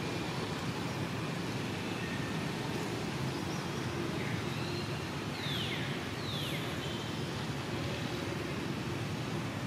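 Steady outdoor background noise, an even hiss and rumble, with two short high calls that slide downward in pitch a little over five and six seconds in.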